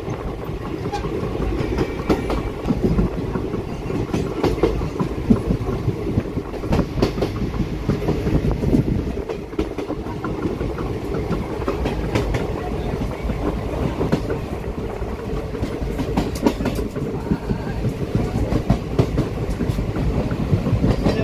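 Passenger train coach running along the track, heard from inside at the window: a steady rumble with irregular clickety-clack of the wheels over rail joints.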